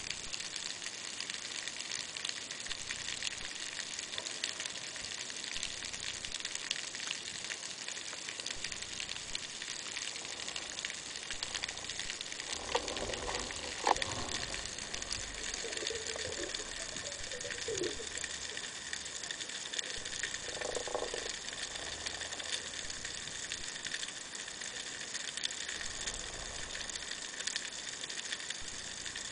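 Underwater ambience: a steady fine crackling hiss, with a few short mid-pitched warbling sounds around the middle and one sharp click about halfway through.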